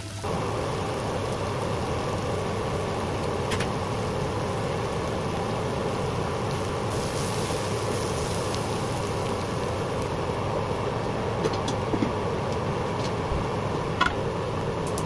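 Steady rushing noise of cooking on a gas hob, with a few light clicks of a spoon against a frying pan of chickpeas. There is a sharper clatter about a second before the end, as a metal grill pan is set down on the hob.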